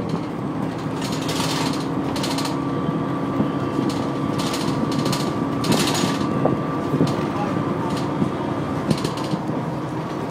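Dennis Trident ALX400 double-decker bus on the move, heard from inside the lower deck: a steady engine and drivetrain drone with a whine, fittings rattling and ticking, and several short hisses.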